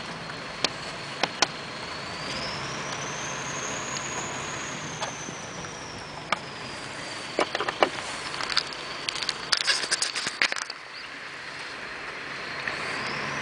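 Light clicks and small rattles of screws being picked out of the plastic air filter housing cover by hand, scattered at first and bunched into a quick run of clicks about three-quarters of the way through. Under them runs a steady hiss with a high whine that rises and falls slowly.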